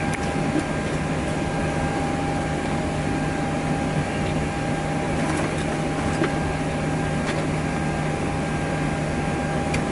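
Steady hum and whine in the cockpit of a Boeing 737-800 standing at the gate, from its running systems and air supply, with a few faint clicks.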